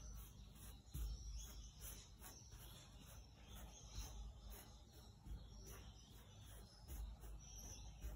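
Wide flat paintbrush scraping paint across a stretched canvas in quick back-and-forth strokes: a faint dry rasp repeating about twice a second, with a few dull low bumps of the canvas or easel.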